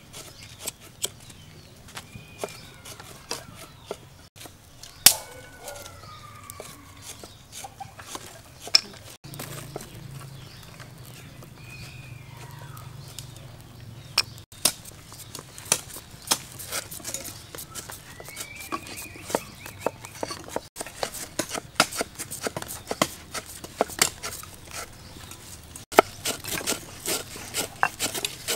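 Roosters crowing several times in the background, each crow a rising-then-falling call. Under them run sharp crackles and snaps from a wood fire. In the latter part come quick, dense knocks of a cleaver chopping leaves on a wooden board.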